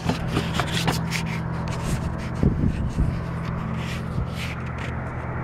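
Steady low droning hum made of several fixed low tones, which the uploader attributes to the Alcoa aluminium plant's machinery, with frequent clicks and rustles over it.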